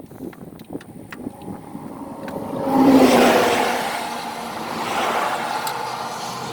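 RV engine being run up: after a few faint clicks, the engine comes up loud about two and a half seconds in, its revs rising and falling as it is throttled while the ignition timing is being set.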